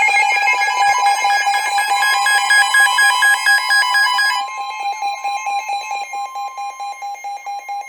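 Emergency Alert System attention signal: a loud, steady two-tone alarm with a fast flutter, the signal that an emergency warning message is about to be read. Its higher, buzzier overtones drop away about four and a half seconds in, while the two main tones carry on.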